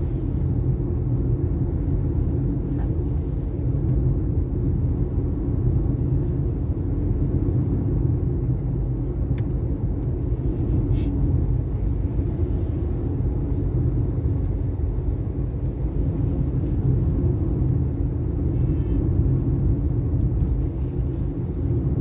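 Steady low rumble of a moving vehicle travelling along a road: engine, tyre and wind noise, even throughout.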